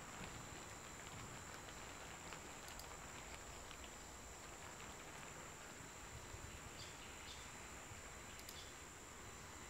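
Faint steady hiss of background noise with a constant thin high-pitched whine, and a couple of faint short clicks about three seconds in and again near the end.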